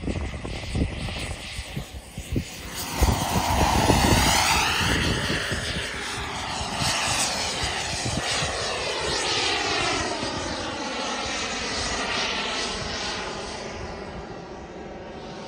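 Model jet turbine (JetMunt 210) of a large-scale RC L-39 Albatros jet making a fast pass, rising to its loudest about four seconds in with a whooshing sweep as it goes by, then a steady turbine rush that slowly fades as the jet climbs away.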